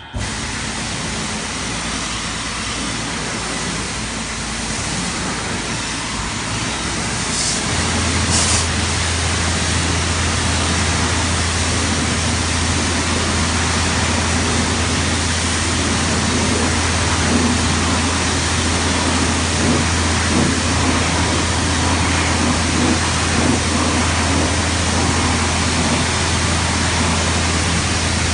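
Automatic car wash machine running over a car: a loud, steady rushing hiss of spray or air, with a steady low hum of machinery joining about eight seconds in.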